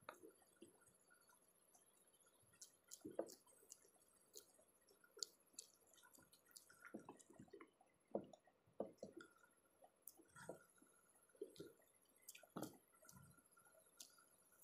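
Faint wet eating sounds: tomato rice being squished and mixed by hand on banana leaves, with chewing and scattered soft clicks.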